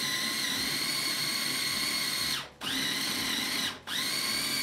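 Small electric food processor running in pulses, chopping garlic and fresh herbs. Its motor gives a steady whine that stops briefly about two and a half seconds in, starts again, and stops and starts once more near the end.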